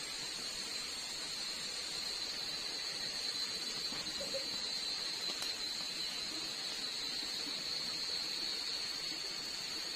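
Night insects chorusing: one steady high-pitched drone over a soft hiss.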